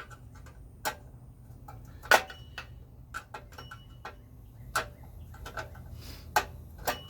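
Irregular clicks and knocks of hand tools and small metal parts during the teardown of a generator, the sharpest one about two seconds in.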